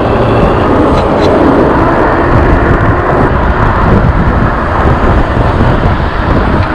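Loud, steady rush of wind and road noise on the microphone of an electric bike riding along a city street, with car traffic alongside.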